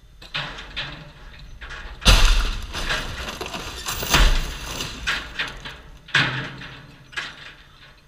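A car dropped from a crane crashes to the ground about two seconds in, a heavy impact of crunching metal, followed by a second big impact about two seconds later as the wreck comes down again. Smaller knocks and clattering debris follow, with a few lighter knocks before the main crash.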